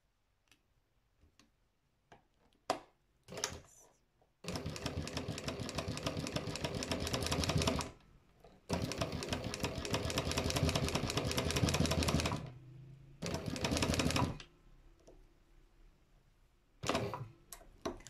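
Sewing machine stitching free-motion embroidery in three runs of rapid needle strokes, two of about three and a half seconds and a short one of about a second. Light clicks of the hoop being handled come before and after.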